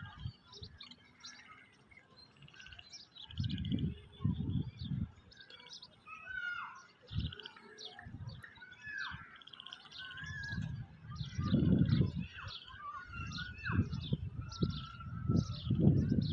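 Many small birds chirping and calling over one another, with short trills and whistled slides. Gusts of wind come and go as a low rumble, strongest around four seconds in, around twelve seconds, and again near the end.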